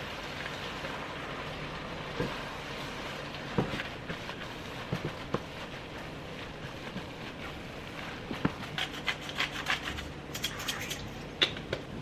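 Kitchen work sounds over a steady hiss: scattered knocks and clicks, then a quick run of sharp taps a few seconds from the end.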